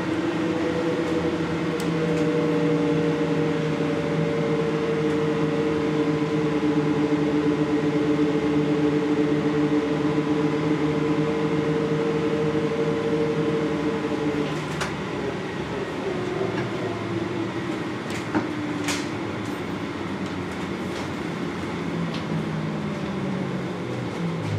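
NAW trolleybus on the move, heard from inside near the front: the electric traction motor holds a steady whine for the first half, then fades as the bus coasts, over tyre noise on the wet road and a few sharp clicks. Near the end a whine falls in pitch as the bus slows.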